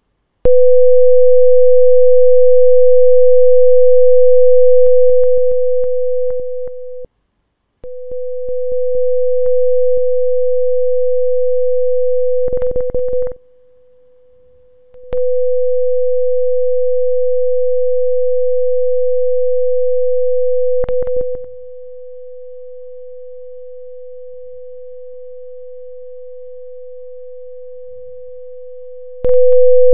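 Steady 500 Hz sine tone from a PhET sound-wave simulation, its loudness stepping up and down as the simulated listener and the amplitude setting are moved in a two-speaker interference demonstration. It cuts out briefly about seven seconds in, dips low around fourteen seconds, runs quieter from about twenty-one seconds and comes back loud near the end, with small clicks at the changes.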